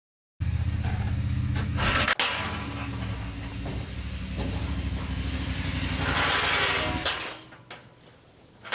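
An engine running steadily, then shutting off about seven seconds in, followed by a single knock near the end.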